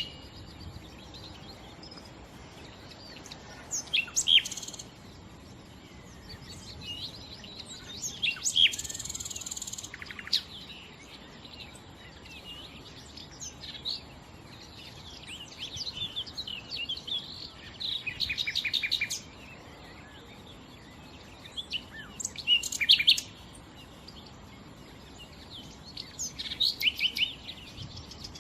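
Nightingale singing in separate short phrases a few seconds apart, mixing whistles with rapid runs of repeated notes.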